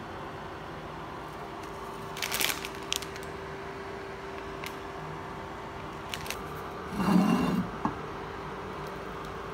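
Kitchen handling sounds over a steady hum: a few light clicks and clinks, then a louder, brief clatter about seven seconds in as a glass pan lid is handled.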